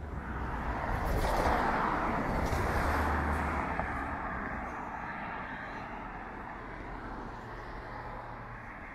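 A car passing by: its tyre and engine noise swells over the first couple of seconds, then fades away slowly.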